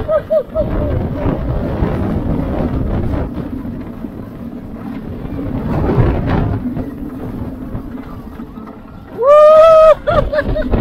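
Wind rushing over the microphone and the rumble of a stand-up surf coaster's train on its track during the ride, swelling about six seconds in. Near the end a rider gives a loud, long yell that rises and then holds for under a second, followed by a few short shouts.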